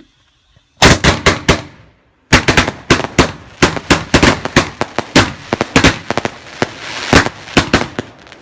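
A Jedi Soldier 25-shot barrage firework cake firing: a quick run of sharp bangs about a second in, a brief pause, then a rapid volley of bangs with crackling that runs on.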